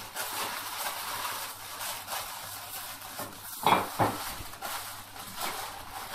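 Aluminium foil crinkling and crackling as it is folded and pressed around a wrapped piece of lamb, with one louder crunch a little past halfway.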